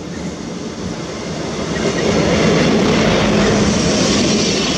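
SA134 diesel railcar pulling into the station and passing close by. Engine and wheel noise grow louder, and a steady low drone sets in about two seconds in as the front draws level.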